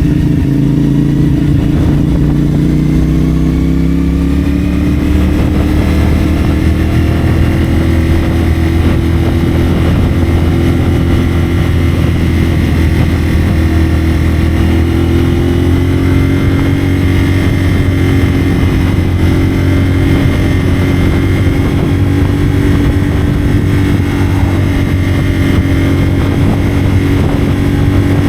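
CFMoto 450SR's parallel-twin engine running through a Yoshimura AT2 slip-on exhaust at a steady cruise. The pitch rises a little over the first few seconds, then holds with only gentle changes in throttle.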